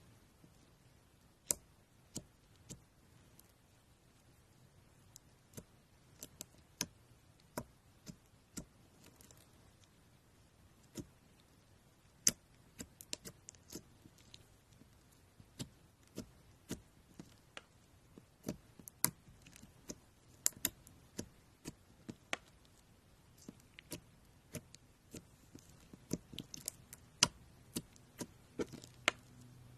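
Slime being pressed and squished by hand, giving irregular sharp clicks and small pops that come thicker in the second half.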